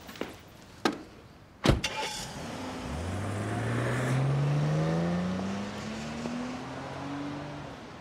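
A car door shuts with a single sharp thud, then a Hyundai Genesis sedan pulls away, its engine note rising smoothly as it accelerates and fading as it drives off.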